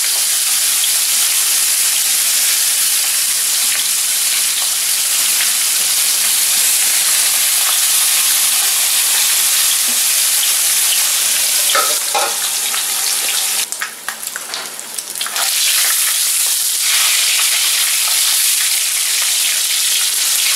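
Bacon and pierogies frying in a pan: a steady sizzle. A few light clicks come about twelve seconds in, and the sizzle briefly drops away a couple of seconds later.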